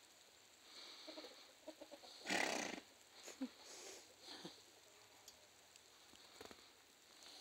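Chickens making soft, short clucks, with one louder, rough, raspy burst lasting about half a second a little over two seconds in.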